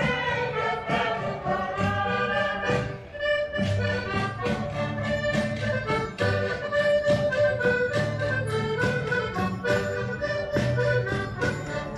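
Live traditional folk music from an open-air stage, led by an accordion playing a tune over a steady beat.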